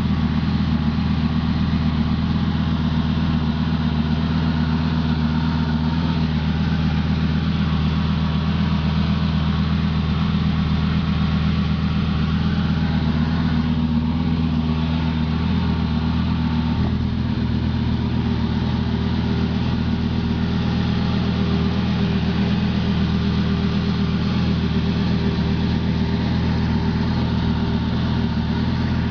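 2004 Lamborghini Gallardo's V10 engine idling steadily, with a slight change in tone about seventeen seconds in.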